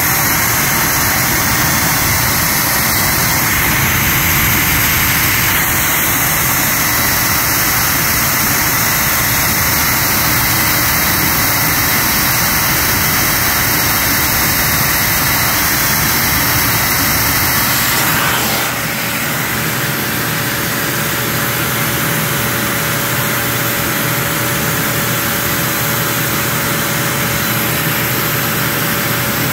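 Steady loud rushing noise from a running machine such as a blower. About 18 seconds in, its tone shifts and it gets a little quieter, losing most of its low rumble.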